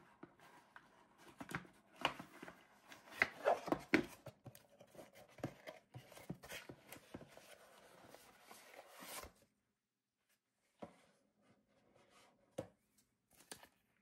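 Cardboard packaging being handled: a paper tray scraped and slid out of its box sleeve, with a quick run of rustles, scrapes and sharp taps. After a short pause come a few separate taps near the end.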